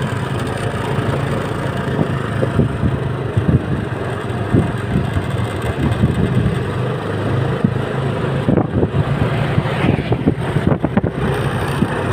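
A large road vehicle's engine running steadily, a low continuous rumble with wind on the microphone. A few short knocks or clicks come in the second half. No horn sounds.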